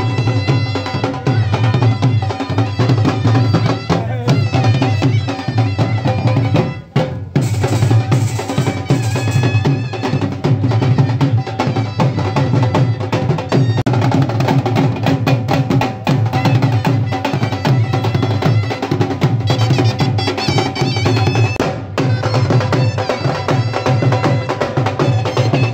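Live Punjabi folk music: dhol drums beating a driving rhythm, with a high, wavering melody line over it. The music drops out briefly about seven seconds in.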